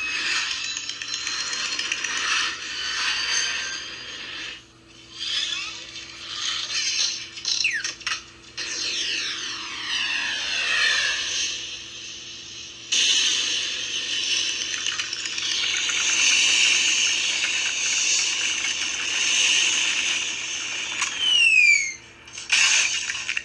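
Toy Story rocket toy playing electronic rocket-power sound effects: a hissing thrust noise with sliding whistle tones, several of them falling, broken by a few short gaps.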